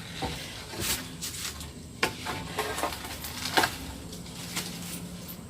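Rustling and handling noises with a few sharp clicks and knocks, over a faint steady low hum.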